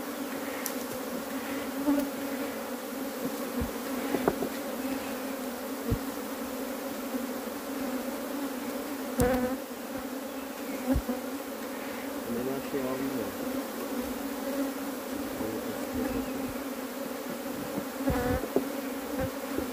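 Honeybees (Apis mellifera) buzzing in large numbers around an opened hive, a steady hum with no let-up. A few short, sharp knocks stand out over it, the loudest about nine seconds in and near the end.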